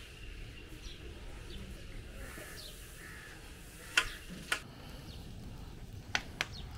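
Four sharp knocks, two close together about four seconds in and two more near the end, over a faint steady background.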